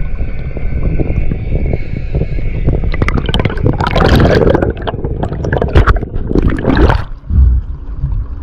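Underwater camera sound: a steady low rumble of water against the housing, then a burst of bubbling and splashing from about three to seven seconds in as the diver rises through a stream of air bubbles.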